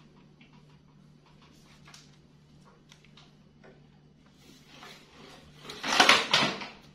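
Small knocks and rustles of a pet monkey clambering over wooden desk shelves, then a loud, harsh rustling burst about six seconds in as it grabs at things on the desk.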